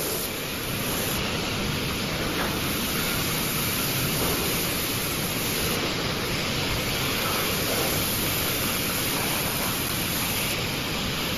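Steady, even hiss of a robotic laser-welding line at work, with a high hiss that cuts in and out a few times.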